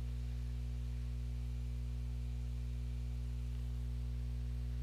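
Steady low electrical hum with a faint hiss behind it, even throughout.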